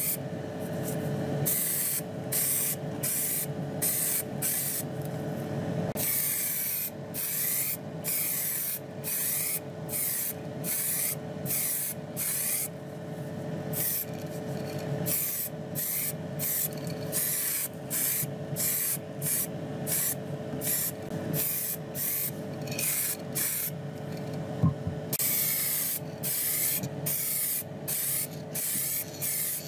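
Aerosol spray can of paint hissing in many short bursts, some brief and some held for several seconds, as small die-cast model parts are painted. A steady hum runs underneath, and there is a single knock near the end.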